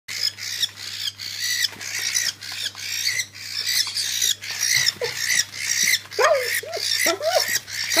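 Cockatiel squawking harshly and rapidly, about three squawks a second, during a fit caused by lead poisoning. A lower wavering vocal sound joins in near the end.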